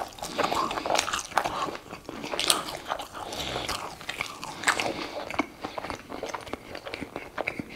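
A person chewing a mouthful of French fries and burger close to the microphone, with irregular crunches and mouth clicks.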